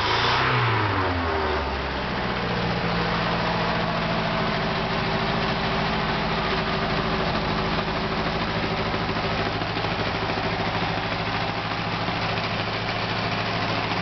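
Ford 1.6-litre four-cylinder petrol engine, converted from a Fiesta to serve as a Bobcat 742 skid-steer engine and running on a test stand. It is revved up and back down once at the start, then settles into a steady idle.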